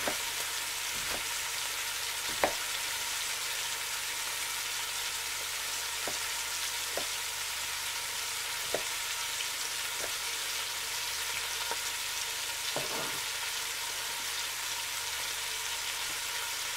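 Bacon frying in a pot, a steady sizzle, with a knife tapping on a plastic cutting board every second or so as an onion is diced; the loudest tap comes about two seconds in.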